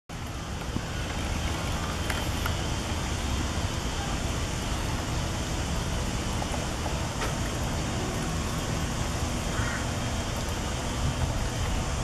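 Steady rushing outdoor background noise with a strong low rumble, broken only by a few faint ticks.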